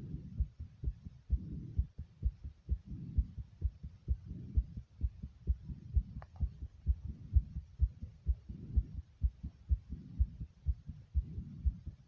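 A person's heartbeat, recorded close up: steady low thumps, many in close pairs. Soft breathing swells in and out about every second and a half.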